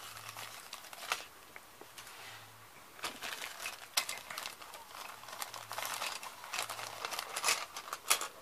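Thin plastic bag crinkling in hands as it is handled and opened, with irregular crackles that become busier from about three seconds in.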